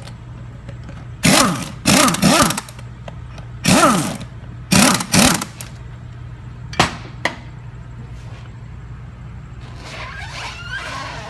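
Metal parts scraping and clanking in four short bursts as hub bolts and parts are fitted to a motorcycle wheel hub, then two sharp clicks, over a steady low hum.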